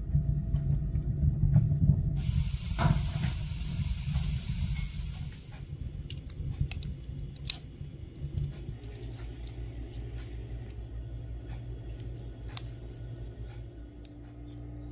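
Logs burning in an open wood stove: the fire crackles and pops in sharp, irregular snaps over a low, steady rush of flame. A hiss runs for about three seconds, starting about two seconds in.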